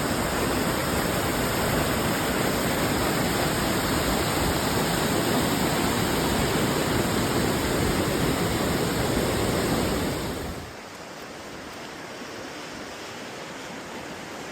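Steady rush of a waterfall heard close up. About ten and a half seconds in it drops suddenly to a much quieter, steady water rush.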